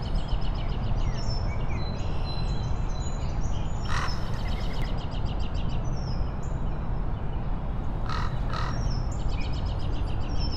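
Several birds chirping and trilling in quick repeated notes over a steady low background rumble, with a couple of brief swishes partway through.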